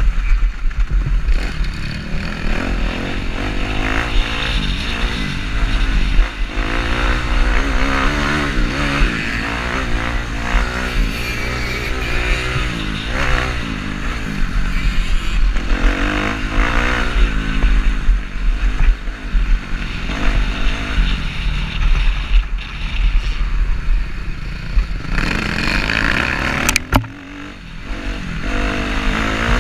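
Kawasaki KX250F four-stroke single-cylinder dirt bike engine revving up and down as it is ridden. Near the end there is a single sharp click, and the engine briefly goes quieter as the throttle comes off before it picks up again.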